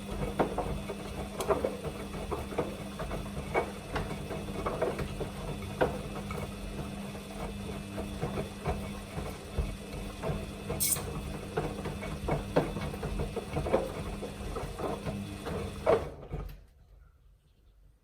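Samsung washing machine on its Quick 29 wash running: a steady motor hum with scattered knocks and clicks of the drum turning the load. It stops abruptly about 16 seconds in, a pause in the drum's rotation.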